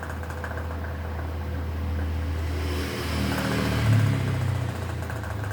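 A motor vehicle's engine running and passing close by: it grows louder to a peak about four seconds in, then fades.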